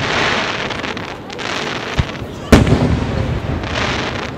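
Aerial firework shells bursting: a sharp pop about two seconds in, then a loud boom with a rumbling tail, against a steady hiss.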